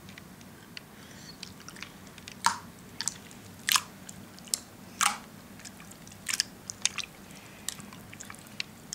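Homemade glue-and-liquid-starch slime being kneaded by hand, giving irregular wet sticky clicks and squelches, several of them sharp.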